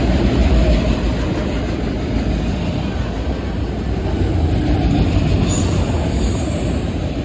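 Freight train cars rolling past at speed, a steady heavy rumble of wheels on rail. A thin, high wheel squeal rises over it for a few seconds in the middle.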